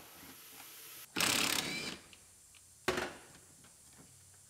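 Powered wrench running in one burst of about three-quarters of a second, undoing a seatbelt anchor bolt, followed near three seconds by a short sharp clack.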